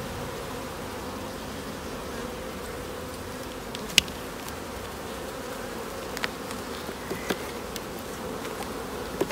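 A honeybee colony buzzing steadily in an open hive. There is a sharp click about four seconds in and a few smaller clicks and cracks later on, as a metal hive tool knocks and pries at wooden frames stuck together with propolis.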